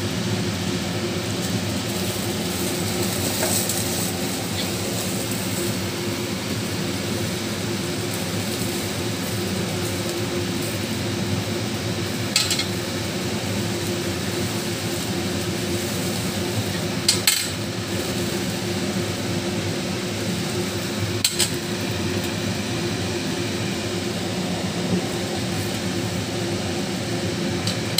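Metal kebab skewers clinking against a wire grill rack over a gas burner, a few sharp clinks spread through a steady hum and hiss.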